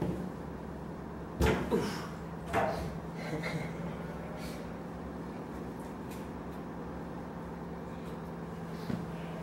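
A few clunks and knocks of a metal tractor diesel tank being handled, the loudest about one and a half seconds in, followed by a low steady hum with faint ticks.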